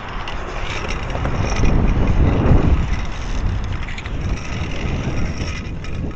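Steady rumble of a Trikke's small wheels rolling over rough concrete, picked up close by a camera mounted low on the vehicle, with the level swelling and easing as it goes.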